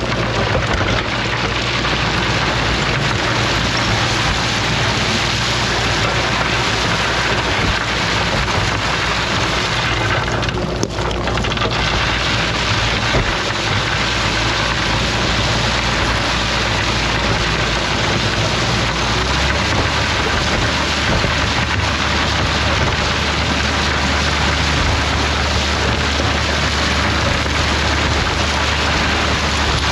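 Heavy machine's diesel engine running steadily under a constant loud hiss of machine and gravel noise while grading a gravel road. The engine's hum changes pitch about two-thirds of the way in.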